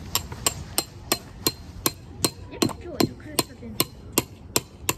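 A tent peg being hammered into the ground: about fourteen sharp, evenly paced strikes, roughly three a second.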